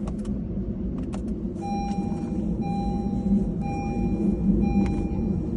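Repeating electronic beep, each tone just under a second long with short gaps, starting about a second and a half in while the car's key programming runs over the OBD port. A steady low rumble runs underneath, with a couple of clicks in the first second.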